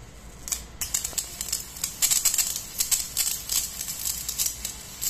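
Rapid, irregular crackling and snapping of small sparks where a grass blade touches the edge of a metal pyramid. It starts about half a second in, is densest around two to three seconds, then thins to scattered snaps.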